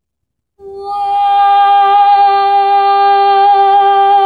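A young woman singing unaccompanied holds one long, steady note with a slight vibrato after a brief pause. It is the drawn-out final word "world" of the song's last line.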